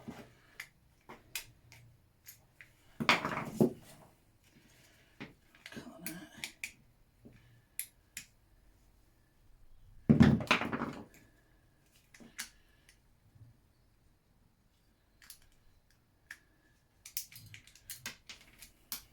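Scattered clicks and clinks of tools and small scooter parts being handled during stripping, with two louder clattering knocks about three seconds in and again about ten seconds in, the second the loudest.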